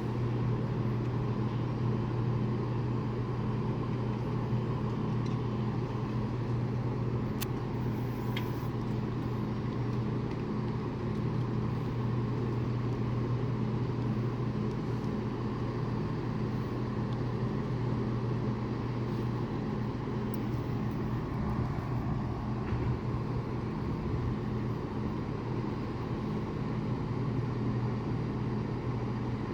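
Class 168 diesel multiple unit idling at the platform: a steady, even engine hum that holds one low pitch throughout.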